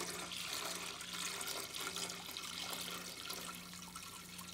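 Water pouring in a steady stream from a gallon plastic jug into the stainless-steel reservoir of a top-load water dispenser, splashing onto the metal. Fresh water going in to rinse out the vinegar cleaning solution.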